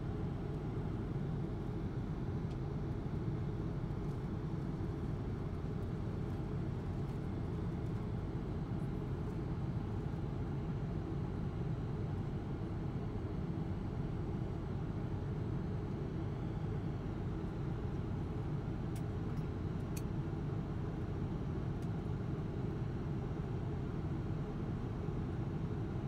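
Steady low cabin noise of a Boeing 777-200 twin-jet in flight, heard from inside the economy cabin: engine and airflow noise with no change in level. A few faint clicks come about three quarters of the way through.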